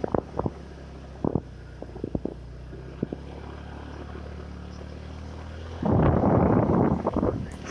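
A vehicle's steady low engine hum, with a few short knocks over the first three seconds. About six seconds in, a loud rushing noise lasts for about a second and a half.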